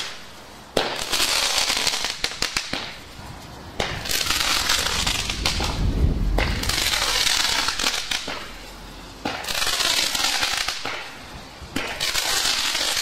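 Firework rockets launching one after another, each starting suddenly and rushing upward with a loud hiss that lasts two to three seconds and fades, with scattered small pops and crackles.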